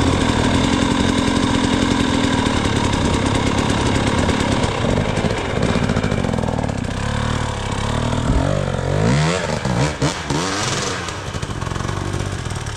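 Dirt bike engine running on a trail, steady at first, then the throttle is opened and closed several times in the last few seconds, the pitch rising and falling with each blip.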